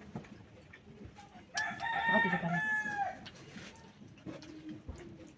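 A rooster crowing once, a single call of about a second and a half that starts about a second and a half in.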